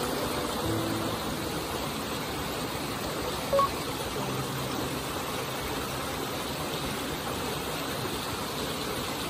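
Steady rush of a small waterfall spilling into a pool of a mountain stream. About three and a half seconds in, one short electronic beep.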